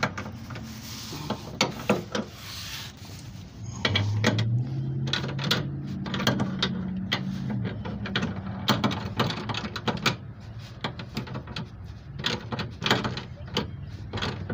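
Hand socket ratchet clicking in short bursts as the step bar's mounting bolts are driven in. A low steady hum comes in about four seconds in and fades out around eight seconds.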